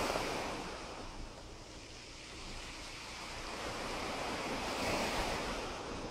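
Small waves of a calm sea washing onto a pebble beach: one wash fades out over the first couple of seconds, and the next swells in about five seconds in.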